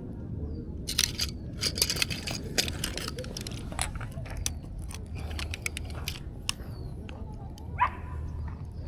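Close handling noises of a freshly landed bass and fishing gear: a quick run of sharp clicks, clinks and rustles, busiest in the first three seconds and thinning out, with a few faint bird chirps.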